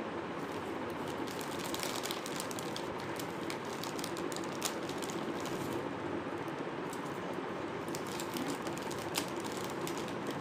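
An irregular run of light, quick clicks over a steady hiss and hum of room noise.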